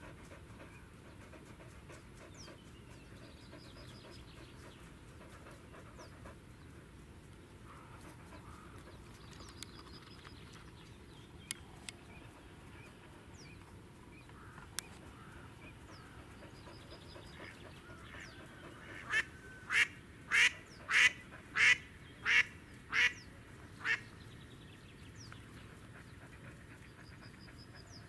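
Live hen decoy duck quacking: a run of eight loud quacks, about one and a half a second, starting about two-thirds of the way in. It is the hen's call that draws drakes in. Faint high chirps of a small bird recur every few seconds.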